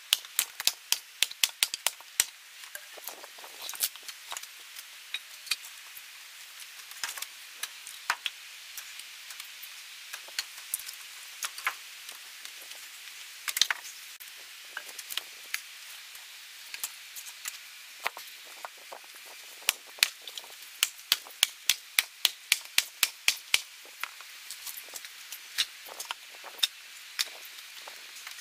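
Birch firewood being split and handled: a long series of sharp, light wooden knocks and clacks, some coming in quick runs of several a second.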